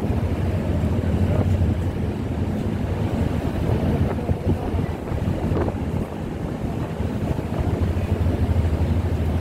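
Strong wind buffeting the phone's microphone: a loud, fluttering low rumble.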